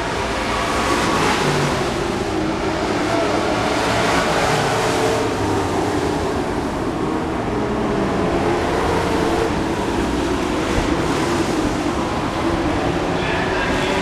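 Several dirt-track racing pickup trucks running at racing speed around a dirt oval. Their engine notes blend into a continuous loud drone that rises and falls as the trucks pass.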